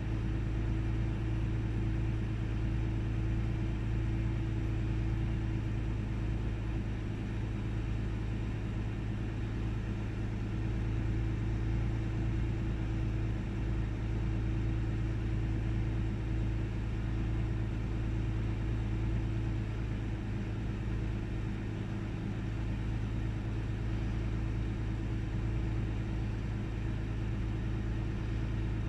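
1998 Ford Taurus's 3.0-litre OHV V6 idling with an open hood, a steady low running sound with small wavers. The car has an intermittent rough idle, sputter and misfire whose cause is not yet known.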